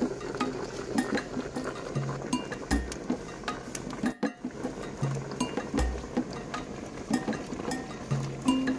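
Background music with a slow, repeating bass line and light plucked-string notes.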